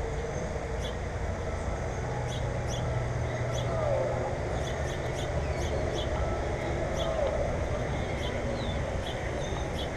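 Birds chirping, many short high chirps repeating, with a few lower falling calls, over a steady low rumble.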